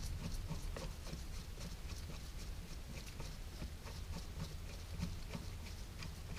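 Faint, irregular little clicks and taps of metal parts being handled: the bolts being worked out of a connecting rod's bearing cap by gloved hands, over a steady low hum.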